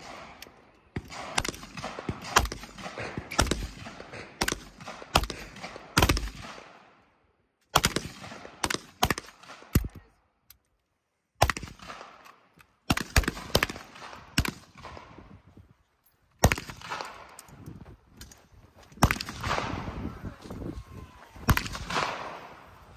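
Gunshots fired in quick, irregular strings, each sharp crack trailing off in an echo. The sound cuts out completely a few times.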